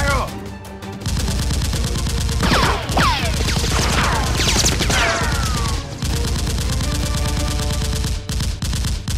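Gunfire sound effects: rapid automatic bursts of shots with several short falling whistles like ricochets in the middle, briefly quieter about a second in.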